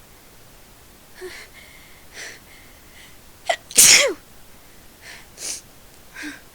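A person sneezing: short catching breaths, then one loud sneeze a little under four seconds in, followed by quieter breaths.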